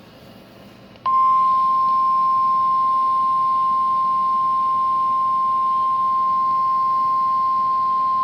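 Emergency Alert System attention tone: the National Weather Service's single-pitch warning alarm, a loud, steady beep that switches on about a second in and holds without a break. It signals that a warning broadcast, here a special marine warning, is about to follow. Faint hiss comes before it.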